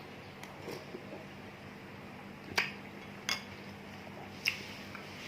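Spoon clinking against a soup bowl three times during eating.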